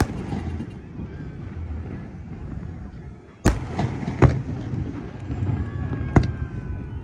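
Aerial fireworks bursting at a distance: a bang at the start followed by a brief crackle, a low rumble, then a run of sharp bangs from about three and a half seconds in, with one more near six seconds.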